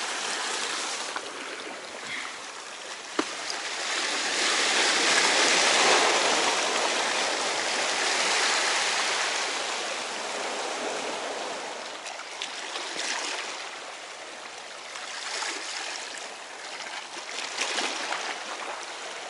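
Sea waves washing over and draining off shoreline rocks, the surge swelling about four seconds in, easing, then returning in smaller surges near the end. A single sharp tick about three seconds in.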